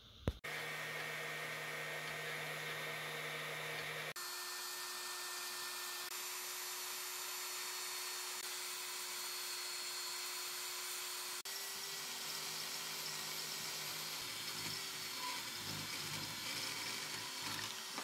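Small bandsaw running and cutting through the jaw of a 50 mm steel open-end wrench, thinning it by about a millimetre: a steady whine with the hiss of the blade in the metal. The sound changes abruptly twice.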